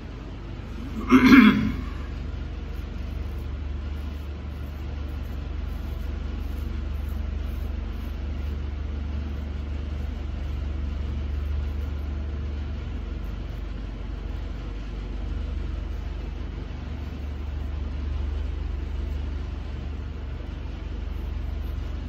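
Steady low rumble of an idling engine, with a short louder sound about a second in.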